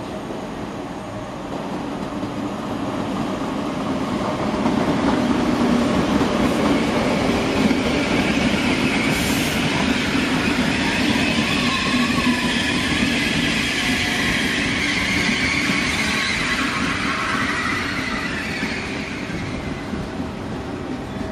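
A train moving on the tracks of a station throat, its running noise swelling after a few seconds, holding, then fading near the end, with high wheel squeal on the curved track.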